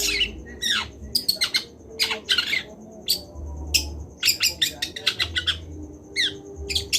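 Juvenile long-tailed shrike singing in practice: a rapid run of short, sharp chattering notes mixed with quick downward-sweeping notes, broken by brief pauses.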